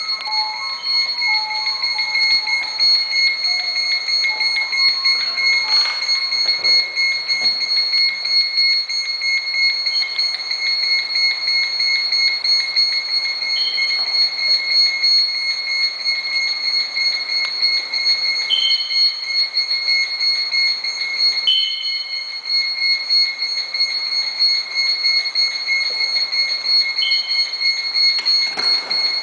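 A loud, continuous high-pitched electronic tone that flutters rapidly in level, with a few short falling chirps over it.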